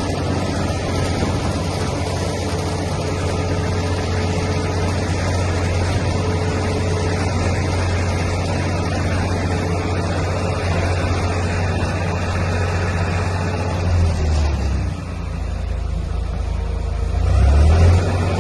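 1995 New Holland L865 skid steer's engine running steadily. About 14 seconds in the sound shifts and briefly drops, then it grows louder to a peak near the end.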